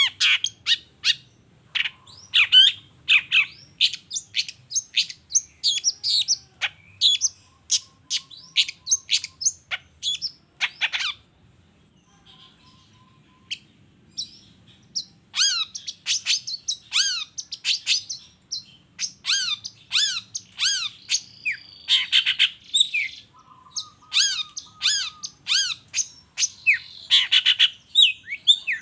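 Long-tailed shrike (cendet) singing: a fast run of sharp, high chattering calls and down-slurred notes, with a few short buzzy rattles. The song thins out about eleven seconds in and picks up again about four seconds later.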